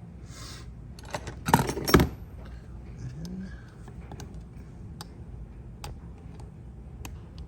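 Small metal parts and tools clinking and rattling as a two-stroke cylinder's power valve is taken apart, with a short burst of clatter about a second and a half in and a few single clicks later.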